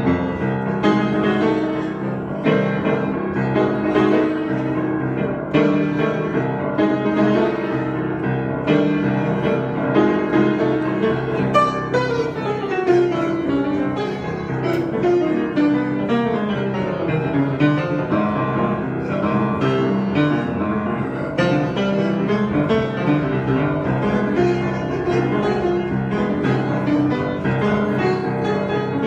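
Piano being played in an improvisation: dense chords and runs, with a long falling run of notes about midway through.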